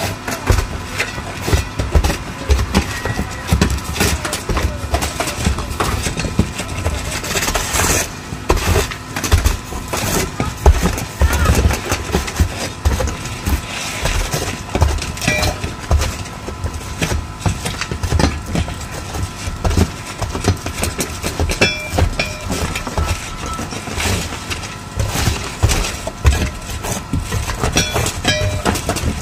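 Roof tear-off work: irregular knocks and clatter from old asphalt shingles being pried up and thrown down, over a constant low rumble, with workers' voices now and then.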